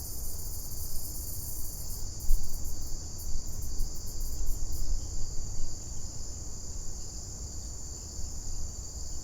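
Steady, high-pitched chorus of insects such as crickets, with low rumbling bumps on the microphone, the loudest about two seconds in.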